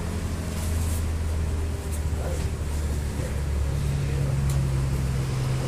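A steady low machine hum, like a motor running nearby, with its pitch stepping up about two-thirds of the way through. A few faint knocks and rubbing come from a rubber inner tube being worked by hand into a large tractor tyre.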